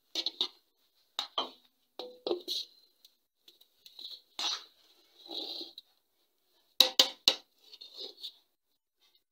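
A metal serving spoon scraping and knocking against a metal pot and a stainless-steel plate as cooked rice is scooped and served, in short separate bursts with a light metallic ring. Three sharp clinks come in quick succession about seven seconds in.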